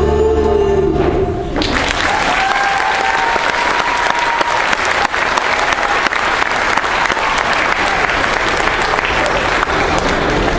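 A recorded pop song ends about a second in, then an audience breaks into applause, with a few voices cheering.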